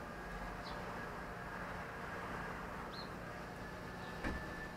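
Steady low background hum outdoors, with a few faint, short, high bird chirps and a single sharp knock about four seconds in.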